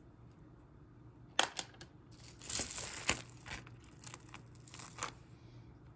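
Costume jewelry being handled on a table: a beaded metal chain necklace clicks and rustles as it is picked up. There are a few light clicks, a short crinkly rustle lasting about a second from a little past two seconds in, then scattered small clicks.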